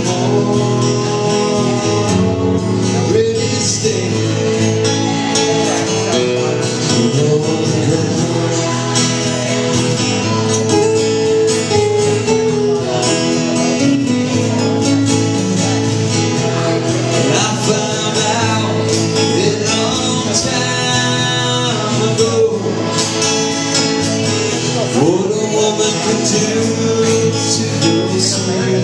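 Live acoustic duo: two acoustic guitars strummed steadily with a man singing over them.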